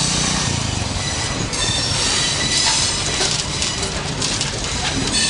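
Train wheels squealing on the rails, several steady high-pitched tones held over a continuous rumble and rattle of rolling railway coaches.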